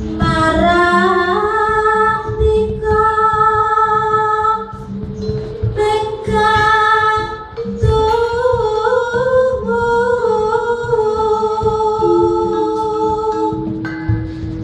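A female singer (sindhen) singing long, held notes that glide in pitch, in three phrases with short breaks, over a Javanese gamelan ensemble of metallophones and gong-chimes playing steadily underneath.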